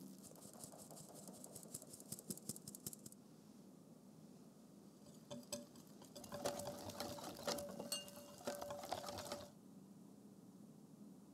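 Flour sifted through a stainless-steel mesh sieve, with a rapid fine ticking as the sieve is shaken over a glass bowl. About six seconds in, a wire whisk beats the flour into the egg batter, clicking rhythmically against the glass bowl with a faint ring, and stops shortly before the end.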